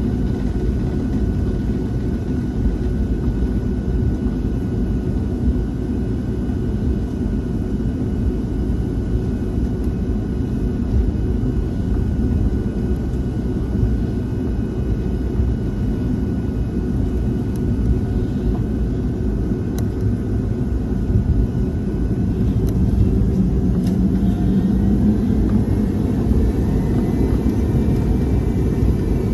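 Cabin noise of a Boeing 757-200 on the ground: a steady low rumble from the jet engines with a thin whine. The whine rises in pitch about three quarters of the way through as the sound grows a little louder.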